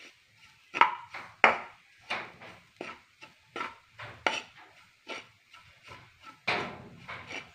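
A metal spoon scraping and stirring grated coconut around a frying pan, in quick uneven strokes about two a second. This is the coconut being roasted with spice powder until it just changes colour.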